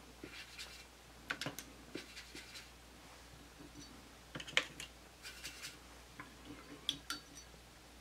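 Faint scratching and scattered light clicks of a watercolour brush mixing paint in a palette's mixing well, in short bursts a second or two apart.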